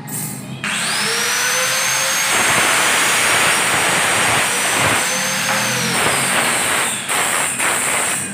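Handheld electric power tool switched on and running at full speed: a steady high whine over a harsh hiss that starts suddenly under a second in, holds for about five seconds, then winds down, with a few short noises near the end.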